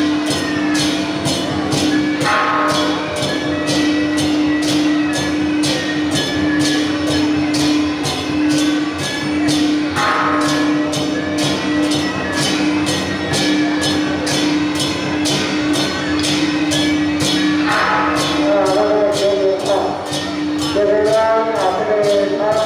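Temple procession percussion music: cymbal-and-drum strikes in a steady beat of about two to three a second over a held tone, with a wavering melody line coming in near the end.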